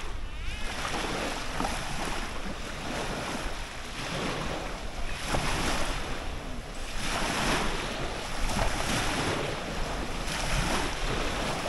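Wind gusting on the microphone: a steady rushing noise that swells and eases several times.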